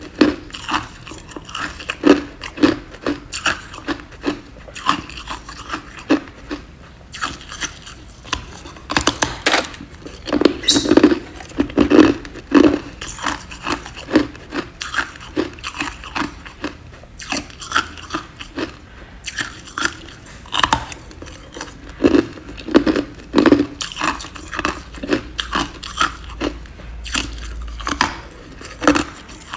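Ice being bitten and chewed: a rapid, irregular run of sharp crunches, several a second.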